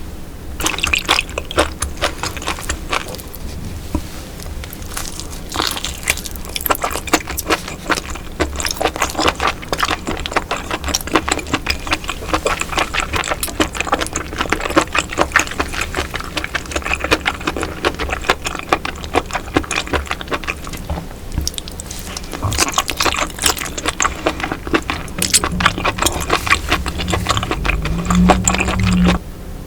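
Close-miked eating of baby octopus in spicy broth: a dense, continuous run of wet chewing, smacking and slurping clicks. A short low hum comes near the end.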